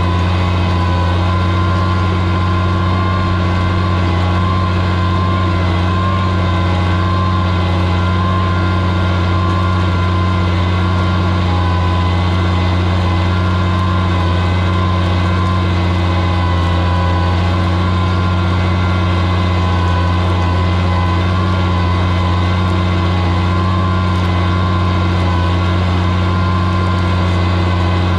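Oliver 77 tractor's six-cylinder engine running at a steady, unchanging speed under the load of pulling a plow through the soil.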